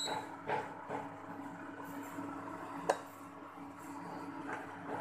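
Prestige induction cooktop humming steadily while an omelette cooks in the pan, with a short beep from its control panel at the start as the heat is raised. A few light clinks of a utensil against the pan come about half a second, one second and three seconds in.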